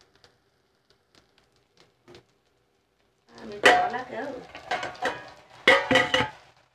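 Steel cookware clattering: a metal pan lid and pots knocked together on a gas stove. There are several sharp metal clangs in the second half, after a few seconds of near quiet.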